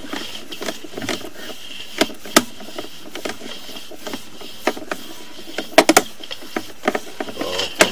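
Sewer inspection camera's push cable being pulled back out of the line and fed onto its reel: irregular clicks and knocks over a steady hiss.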